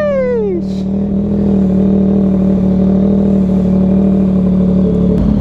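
Motorcycle engine running at a steady pitch, a constant even drone that neither revs up nor dies down.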